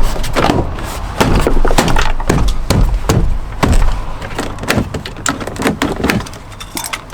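Door trim panel being pushed and knocked back onto a Land Rover Discovery 4 rear door: a run of irregular knocks and clicks as the panel's retaining clips are pressed home.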